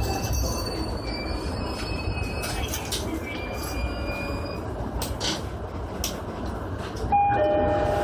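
JR Sobu Line electric commuter train running slowly, with thin high wheel squeal and occasional sharp clicks from the track. About seven seconds in, a louder steady two-note tone starts.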